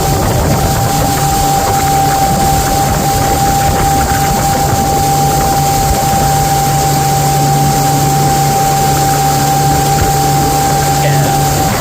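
A motorboat engine running steadily, with a steady whine-like tone over its hum.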